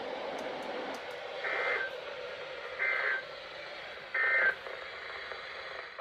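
Three short Emergency Alert System end-of-message data bursts over a weather-radio broadcast, each a brief two-tone warbling chirp about a third of a second long, spaced about 1.3 seconds apart, over steady radio hiss. They are the coded signal that the severe thunderstorm warning message has ended.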